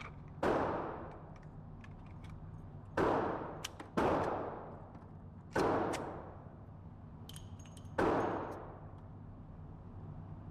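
Five handgun shots at irregular intervals, each a sharp crack followed by a short echoing tail.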